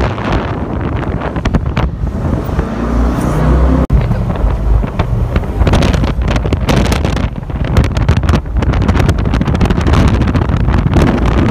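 Loud wind buffeting the microphone aboard a moving boat, a gusty rumble with the boat's run through the water underneath, dropping out briefly about four seconds in.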